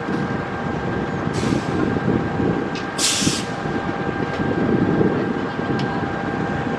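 Argo Sindoro passenger train coaches rolling away over curved track, a steady rumble of wheels on rail. Two short hisses break through, the first about a second and a half in and a louder one about three seconds in, along with a few faint clicks.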